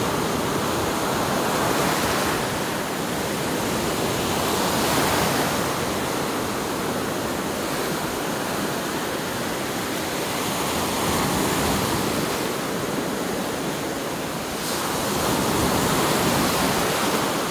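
Sea surf breaking and washing up the beach: a steady rush that swells and eases every few seconds.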